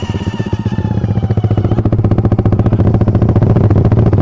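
A Suzuki Satria FU motorcycle engine runs steadily, its firing pulses rapid and even under a low hum. Over it is a faint high whine that falls a little in pitch and fades about two seconds in. The rider likens this odd noise to a fan ('ming') and cannot place it.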